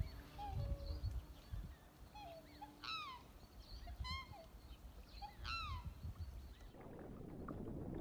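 Black swans calling: three falling, bugle-like calls spaced about a second apart, with softer short notes between them.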